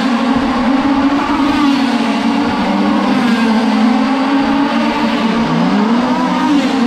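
Small two-stroke gas engine of a 1/5-scale RC dirt oval race car running at high revs, the pitch wavering with the throttle, dipping briefly about five seconds in and climbing back up.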